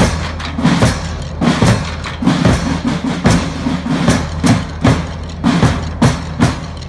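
A school marching band's drum corps playing side drums and bass drums together, beating a steady march rhythm with accented strokes about twice a second.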